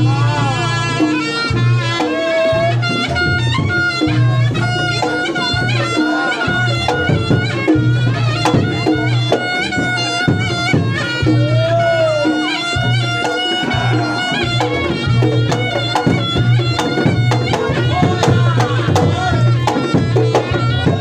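Reog Ponorogo gamelan accompaniment: a slompret, the shrill double-reed shawm, plays a wavering melody over a steady run of low kendang drum and gong beats.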